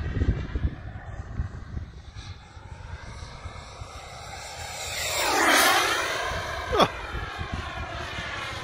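XiCoy 45 turbine of a Sebart Mini Avanti model jet flying past: its whine swells to a peak a little past halfway and then falls away. A short, sharp downward-sweeping sound comes about a second after the peak.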